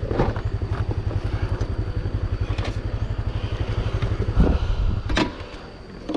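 125 cc scooter's single-cylinder engine idling with a fast, even pulse, then shut off about five seconds in. A couple of clunks come just before it stops.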